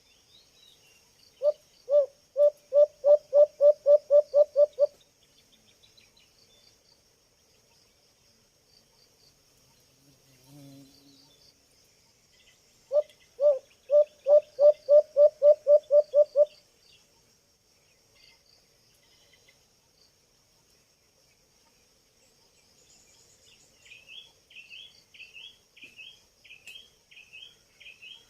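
White-eared brown dove calling: two series of about a dozen low hooting notes, each series speeding up as it goes, about ten seconds apart. Insects drone faintly throughout, and another bird starts a run of quick, higher chirps near the end.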